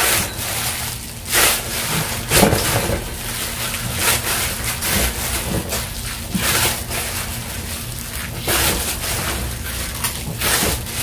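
Gloved hands kneading dough in a stainless steel mixing bowl: irregular pushes and folds about every second or two, with the crinkle of thin plastic gloves and the bowl shifting. The dough is being worked until it is smooth.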